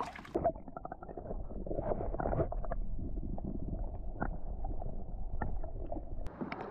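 Muffled underwater sound picked up by a submerged action camera in shallow seawater: a low rumble of moving water with scattered faint clicks. It begins just after the camera splashes under, and the brighter open-air hiss comes back near the end as the camera breaks the surface.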